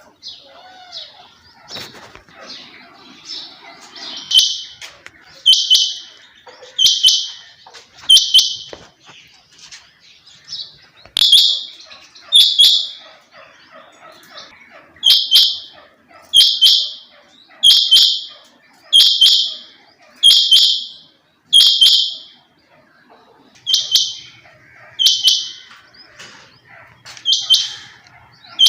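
A quail calling: a loud, high, short call repeated about once every 1.2 seconds in runs of two to six with brief pauses, after a few seconds of faint chirping.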